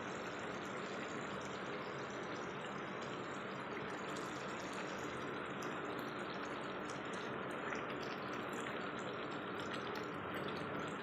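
Prawn and egg curry simmering in a pan, a steady bubbling hiss, with a few light clicks of a metal spoon against the pan in the second half.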